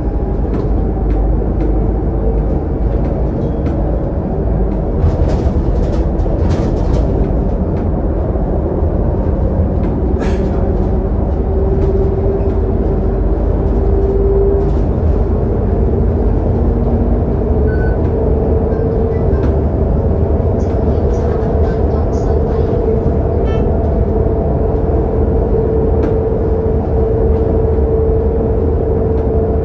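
Interior sound of a Scania K280UD double-decker bus cruising on an expressway, heard from the front of the lower deck: a steady low rumble of the rear engine and tyres on the road, with a whine that steps up in pitch about halfway through and a few short rattles in the first third.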